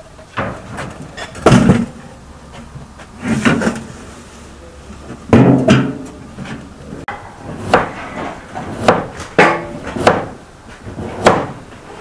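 An irregular series of knocks and thuds, about nine in twelve seconds, the loudest about a second and a half in and again about five seconds in.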